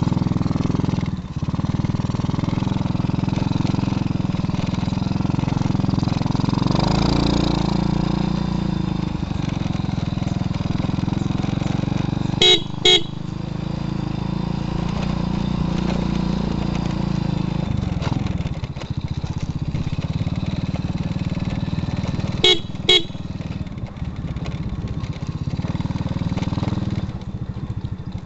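Small motorcycle engine running steadily while being ridden, heard from the rider's seat. A horn beeps twice quickly about halfway through, and again twice near the end.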